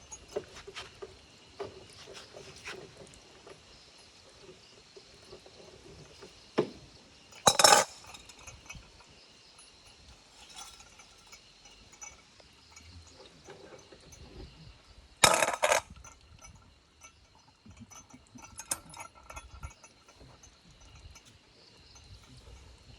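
Fish-cutting work: scattered light clinks and knocks of tools on the cutting surface, with two loud, short noisy bursts about seven and fifteen seconds in.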